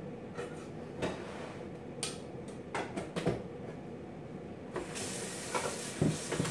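Scattered knocks and clicks of kitchen things being handled, then a steady hiss that starts suddenly about five seconds in.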